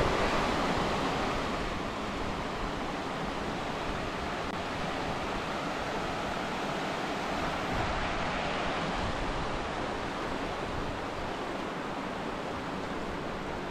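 Shallow mountain stream rushing and splashing over rocks, a steady rush of water that is a little louder in the first second or two.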